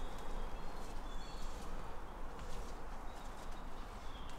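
Faint outdoor background hiss with a few short, high, level-pitched tones, each about half a second long, and some soft clicks.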